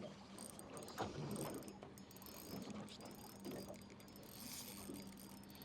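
Fishing reel being wound in against a fish, a faint mechanical clicking and whirring, with a knock about a second in and a steady low hum underneath.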